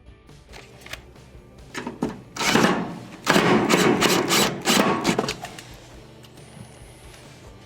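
A cordless drill/driver running in two short stretches, driving Phillips screws into the range's sheet-metal rear panel, with quieter handling of the panel and screws around them.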